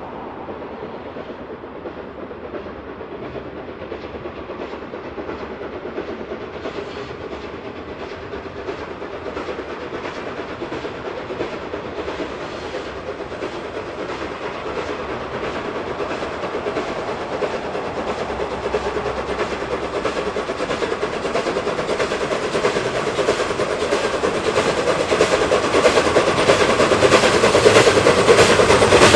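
Train approaching, growing steadily louder, with a rapid regular beat that becomes more distinct as it comes near.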